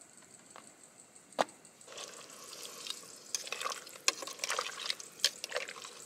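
Metal kitchen tongs stirring yabbies through a pot of boiling, seasoned water: the liquid sloshes and bubbles, with sharp clinks of the tongs against the stainless steel pot. A single click comes just over a second in, and the stirring starts about two seconds in.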